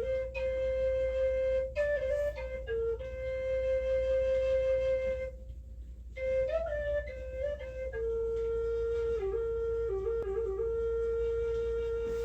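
A flute playing a slow, meditative melody of long held notes decorated with short trills and turns, with one pause for breath about five seconds in.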